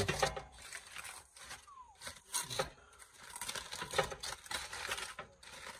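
Aluminum foil wrapping crinkling and rustling as it is pulled open by hand, in irregular crackles.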